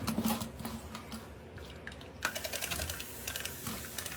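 A run of light, quick clicks and taps from small hard objects being handled, thickest about two seconds in.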